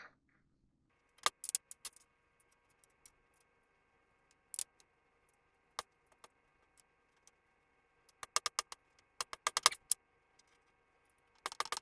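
Small metal hardware clicking and clinking against the metal frame of a trike bike basket as it is screwed together, in scattered clusters of sharp taps with a dense run of them toward the end.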